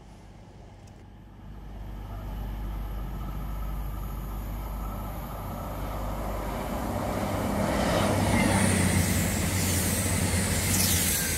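Voyager diesel multiple unit approaching and running past: the low hum of its underfloor diesel engines and the wheel-on-rail rumble and hiss grow steadily louder, loudest from about eight seconds in as the coaches go by.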